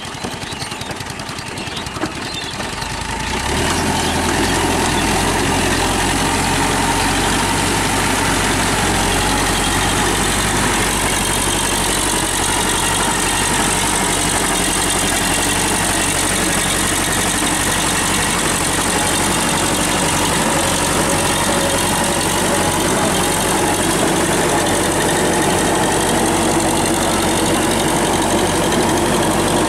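TAFE 5900 DI tractor's diesel engine running steadily while the tractor drives a rotary tiller through mud. The sound grows louder about three and a half seconds in and then holds steady.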